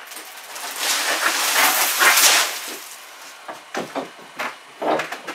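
Fiberglass insulation being torn down off a wall: a tearing, rustling noise lasting about two seconds, followed by a few light knocks.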